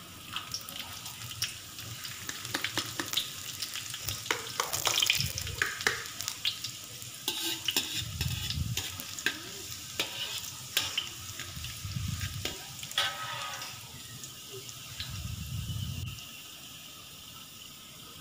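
Chopped garlic sizzling in hot oil in a wok, with many sharp clicks and scrapes from a metal slotted spatula stirring it against the pan.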